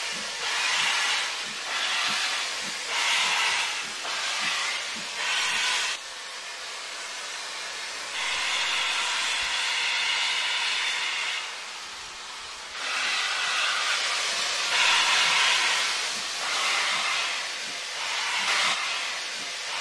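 Steam locomotive sound: slow exhaust chuffs about once a second with hissing steam, then several seconds of steady hiss, then chuffing and hissing again, louder.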